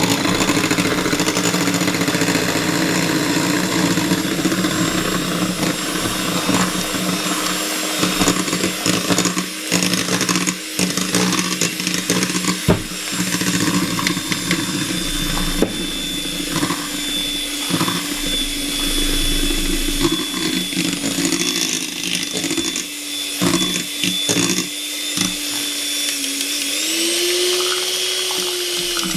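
Electric hand mixer running steadily on low speed, its beaters churning cake batter as flour is mixed in, with irregular clicks and knocks. Near the end the motor pitch rises as it speeds up.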